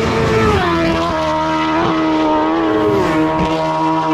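Road-racing motorcycle passing at full speed close by, its engine note dropping as it goes past and then holding a steady high pitch as it carries on down the road. There are a few short sharp cracks along the way.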